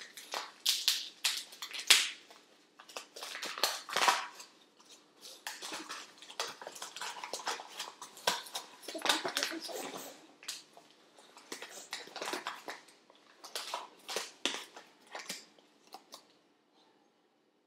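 Kitchen utensils clinking and scraping against a mixing bowl in irregular bursts, as flour is measured in and the crust mixture is stirred; the clatter stops about a second before the end.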